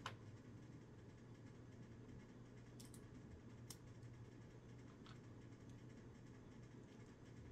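Near silence with a steady low hum and a few faint clicks of plastic Lego bricks being handled and pressed together.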